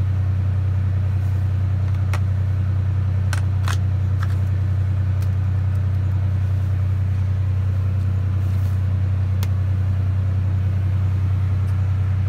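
A vehicle engine running steadily, a loud, even low drone, with a few light clicks about two, three and a half, four and nine and a half seconds in.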